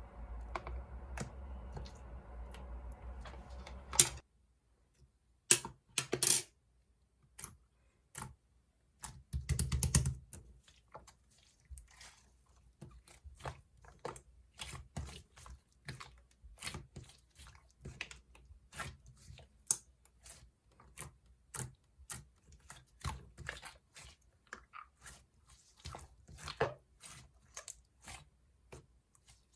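Two-layer clay slime being pressed, stretched and poked by hand, making a long run of sticky clicks and small pops, irregular at two to four a second. A steady low hum in the first few seconds cuts off about four seconds in.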